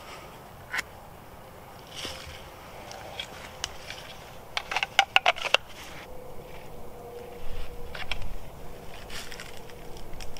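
Rustling and crackling of a jute twine lashing being wrapped and pulled tight around a wooden pole, with dry leaf litter crunching underfoot. A quick run of sharp crackles comes about halfway through.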